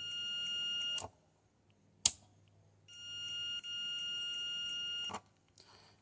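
Multimeter continuity beeper sounding two steady high-pitched beeps, the first about a second long and the second about two seconds, with a sharp click of the probes about two seconds in. The tone signals that the circuit under test conducts.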